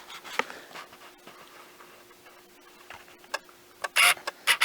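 Handling noise: a few scattered light clicks, then a brief louder rustle about four seconds in and two more clicks near the end, over a faint steady hum.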